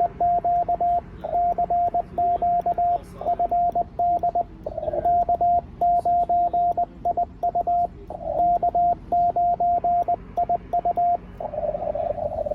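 Morse code sent from a paddle keyer on a ham radio transceiver: one steady mid-pitched sidetone keyed on and off in quick dots and dashes, in groups with short gaps. About eleven seconds in, the keying stops and the radio's narrow CW filter hiss takes over as it goes back to receive.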